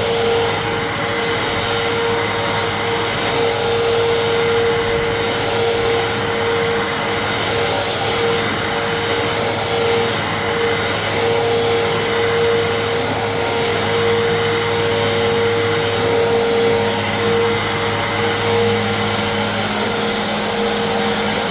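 Fantom Fury 12-amp vacuum cleaner running steadily as it is worked over a rug, its motor giving a constant whine over the rush of air.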